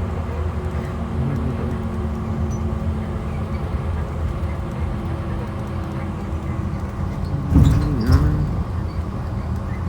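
Steady engine and road rumble heard from inside a 2012 IC RE school bus with a MaxxForce DT diesel, while riding. A brief louder noise with a dipping, then rising tone comes about seven and a half seconds in.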